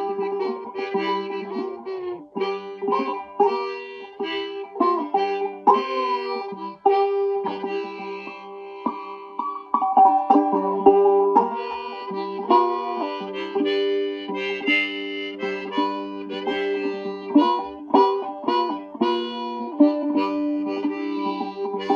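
Resophonic mandolin in sawmill tuning being picked, with a harmonica playing held and bent notes along with it.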